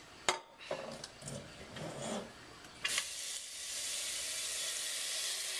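A few light knocks, then about three seconds in a kitchen faucet comes on and a steady stream of water runs into a stainless steel pot, filling it.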